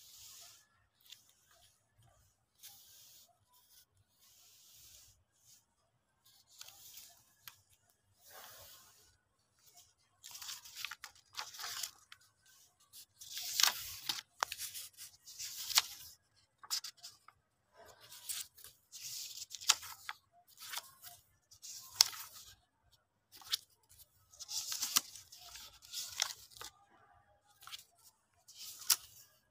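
Stiff pages of a photo album being handled and turned: short bursts of rustling, crackling paper, sparse and faint at first, then coming thick and louder from about ten seconds in.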